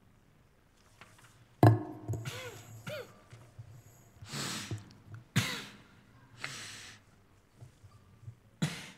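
A person coughing, clearing the throat and breathing out heavily in a string of separate bursts, each about half a second to a second long. The sharpest comes a little under two seconds in, and there is another near the end.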